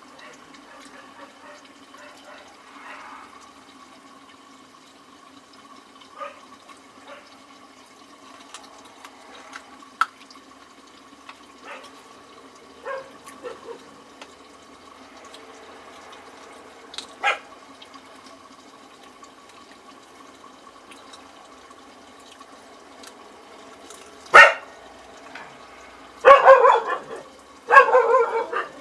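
A dog barking in short bursts several times near the end, over a faint steady hum.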